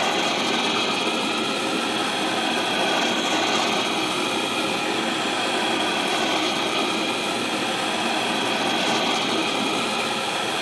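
Jeweller's soldering torch flame running with a steady hiss, held on a band ring to heat it before the solder flows.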